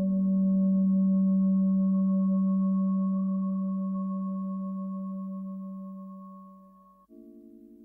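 Experimental electronic drone music: a loud, low sustained tone with fainter, higher steady tones above it, slowly fading. About seven seconds in it cuts off and a quieter cluster of different steady tones takes over.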